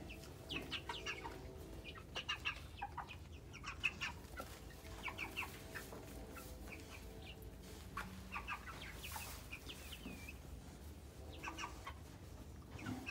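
Seven-week-old chickens, Cornish cross broilers and egg-layer pullets, calling softly in many short, high peeps and chirps scattered throughout.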